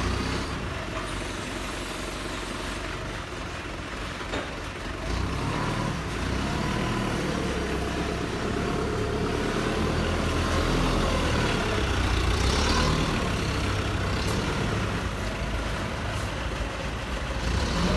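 A 2.5-ton diesel forklift's Mitsubishi engine running as the forklift drives about. It gets louder about five seconds in, and its pitch rises and falls a little with the throttle.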